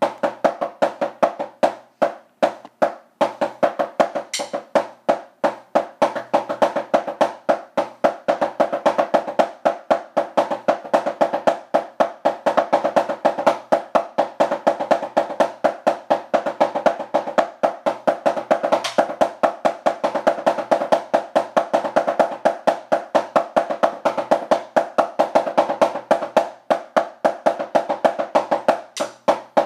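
Drumsticks striking a practice pad in a fast, even stream of strokes: a double-stroke roll exercise. The strokes are spaced apart for the first few seconds, then run on as a rapid steady roll.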